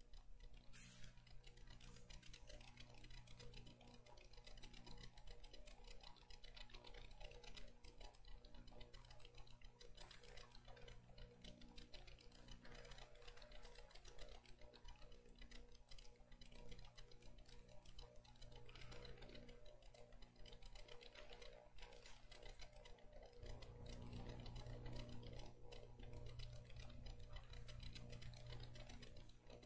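Near silence: room tone with a steady low hum and faint scattered clicks.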